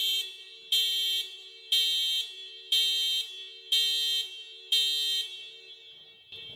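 Car alarm going off: six loud pulses about a second apart, over a steady lower tone that cuts off near the end.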